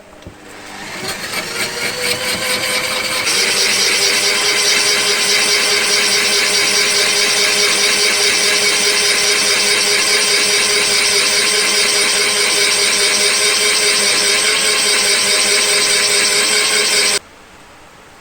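Electric power-tool motor spinning up, its whine rising in pitch over about three seconds, then running loud and steady at full speed. It cuts off abruptly about a second before the end.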